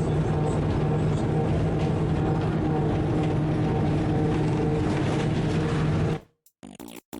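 Rack railway car running with a steady drone and low hum from its motors and wheels. It cuts off suddenly about six seconds in and choppy electronic music follows.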